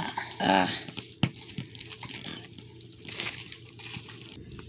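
Plastic shrink wrap crinkling and crackling as fingers pick and peel it off a plastic capsule ball, with a sharp click about a second in. The wrap is stuck fast to the ball.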